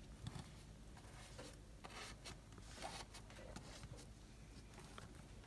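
Near silence with faint scratchy rubs and light ticks as a wooden skewer is pushed repeatedly into warm loaf cakes in paper-lined pans.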